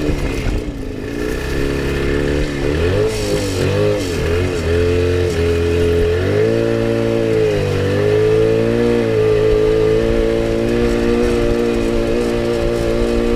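Jawa 350 two-stroke twin motorcycle engine heard onboard, its pitch dropping and climbing again several times in the first seven seconds, then holding a steadier, slowly rising note. The engine is running very lean.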